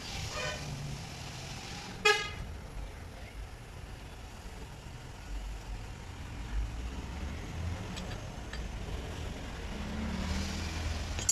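A vehicle horn gives two short toots, one right at the start and one about two seconds in, over a steady low traffic rumble.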